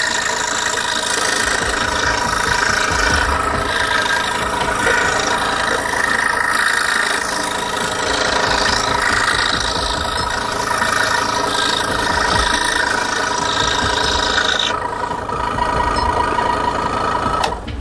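Scroll saw running steadily, its reciprocating blade cutting freehand jigsaw puzzle pieces from a wooden puzzle board. The higher hiss drops off near the end while the motor runs on.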